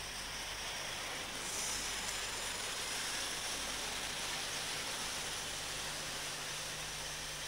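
British Rail first-generation diesel multiple unit running past along the platform: a steady rushing noise of the train going by, slightly louder a second or two in, under a layer of tape hiss.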